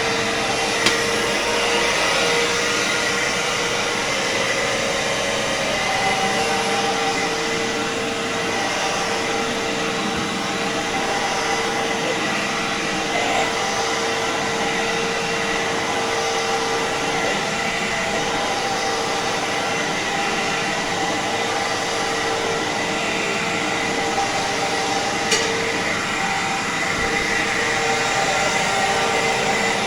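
Fantom Fury 10-amp upright vacuum cleaner running steadily over carpet, its motor holding an even whine. Two sharp ticks cut through, one about a second in and one near the end.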